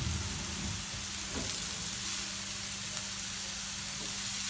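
Chopped onion and garlic sizzling steadily in hot oil in a non-stick frying pan over a high flame, with one light knock about a second and a half in.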